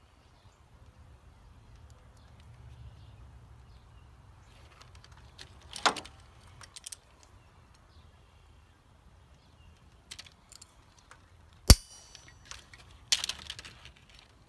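Scattered clicks and light clinks from handling a wiring harness and a plastic crimp connector by hand. There is one sharp click about two-fifths of the way in, a louder, sharper click about four-fifths in, and a short flurry of clicks just after it.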